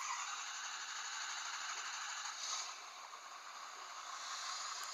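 Ford 6.7 L Powerstroke V8 turbo-diesel, a brand-new 2019 engine, starting suddenly and settling into a steady idle.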